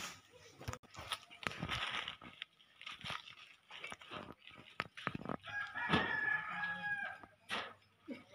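A rooster crowing once, one long call of about a second and a half past the middle, among scattered short knocks and clatters.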